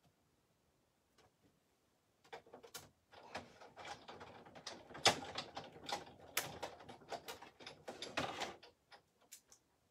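Scissors snipping through cardstock in quick irregular cuts, with the paper rustling as it is turned. This starts about two seconds in and dies away near the end.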